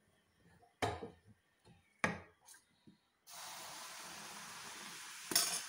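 Two short knocks, then a steady sizzle starting about three seconds in as boiled milk is poured onto hot roasted rava and vegetables in a pan on the stove.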